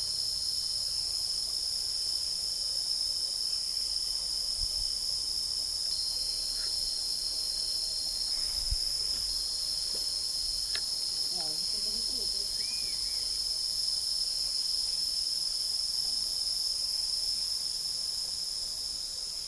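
Steady chorus of tropical forest insects: several continuous high-pitched drones layered together, one of them faintly pulsing.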